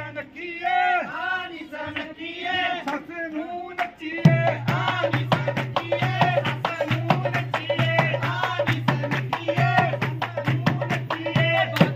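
Punjabi wedding folk song: a high singing voice carries the tune alone for about four seconds. Then a loud drum stroke brings back a quick, steady drum beat under the singing.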